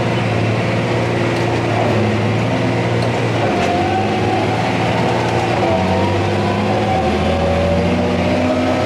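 John Deere 8320 tractor's six-cylinder diesel engine running through a big straight pipe, a steady deep exhaust note that shifts slightly in pitch about three and a half seconds in and again about seven seconds in.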